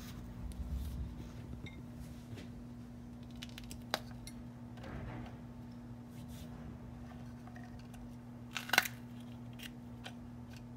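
Hands placing pepper pieces into a plastic food processor bowl: soft handling noises, a click about four seconds in and a sharper knock near the end. A steady low hum runs underneath.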